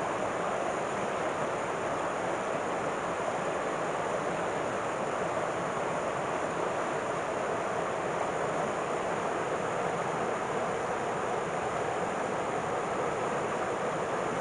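River water flowing, a steady even rushing noise.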